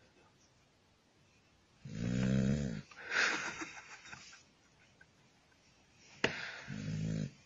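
A dog sleeping on its back, snoring. One snore comes about two seconds in, followed by a breathy exhale, then a sharp click and a second snore near the end.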